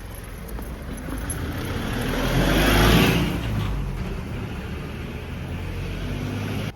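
A road vehicle driving past close by. It grows louder to a peak about three seconds in, then eases off to a steady low rumble.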